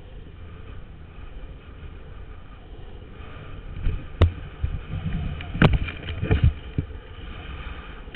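Longboard wheels rolling fast downhill on asphalt: a steady rumble with wind on the microphone, and several sharp knocks around the middle as the board or camera hits bumps in the road.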